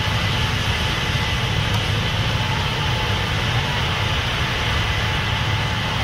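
Heavy diesel farm machinery running steadily: a low engine drone with a constant hiss over it and a faint steady whine.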